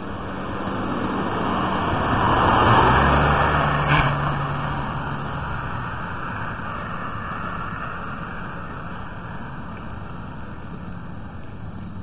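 A car driving past: engine and tyre noise swells to its loudest about three seconds in and fades away by about six seconds, over steady street noise. A sharp click sounds about four seconds in.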